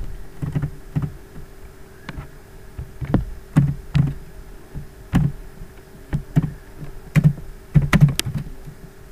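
Computer keyboard keystrokes typed unevenly, about two a second, over a faint steady hum.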